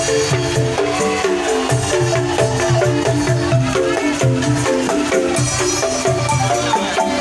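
Angklung ensemble playing a melody: shaken bamboo tubes rattling out short pitched notes over a repeating low bass beat.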